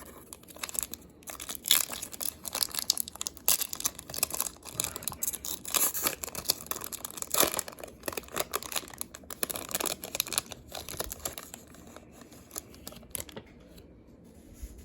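Foil trading-card pack wrapper being torn open and crinkled in the hands, a dense run of irregular crackles that dies away over the last couple of seconds.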